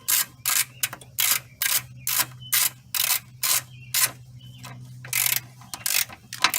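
Socket ratchet wrench clicking in short strokes, about two a second with a brief pause near the end, as a ground-cable bolt is tightened onto the terminal block.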